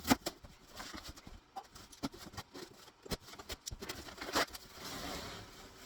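Cardboard boxes being handled, with scattered knocks and taps, then a longer stretch of cardboard scraping and rustling near the end as an inner shipping box is worked out of an outer one.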